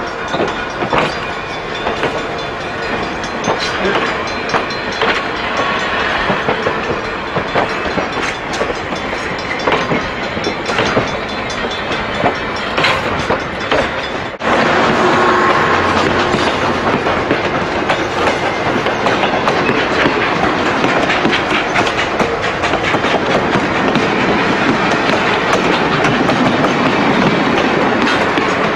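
Passenger coaches rolling past close by, wheels clicking over the rail joints over a continuous rumble. The sound steps up suddenly about halfway through and stays louder.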